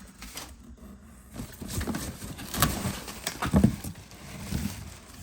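Parcel being unpacked by hand: rustling of the box and its padding, with a run of irregular knocks and thumps, loudest around the middle.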